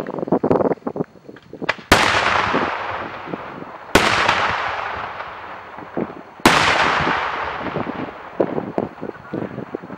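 Daytime fireworks: three loud, single firework bangs about two seconds apart, each followed by a long rolling echo, with scattered crackling pops before and after them.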